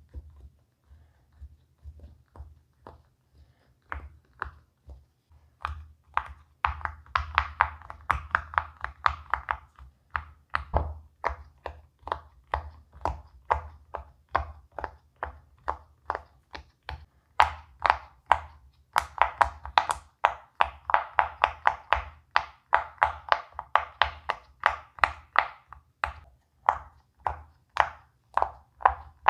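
Bubbles of a silicone pop-it fidget toy pressed one after another: a steady run of popping clicks, a few each second, soft at first and louder from about six seconds in.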